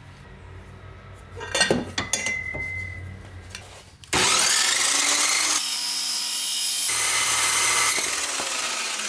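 A few metal clanks, then about four seconds in a metal-cutting chop saw starts up suddenly and loudly and cuts through a bent metal exhaust tube clamped in its vise.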